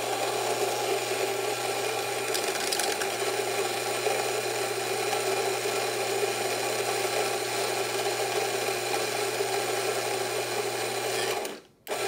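Rancilio Rocky flat-burr coffee grinder running steadily, grinding beans straight into a portafilter. The motor cuts out briefly near the end and starts again.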